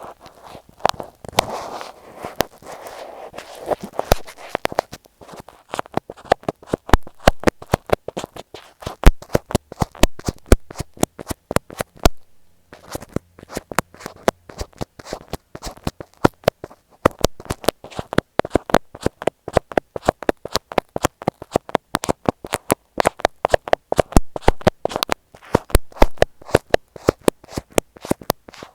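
Close-up tapping, poking and rubbing on tape stuck over an Apple EarPods earphone microphone: a quick, irregular run of sharp clicks and taps, with a soft rubbing sound in the first few seconds and a brief pause about twelve seconds in.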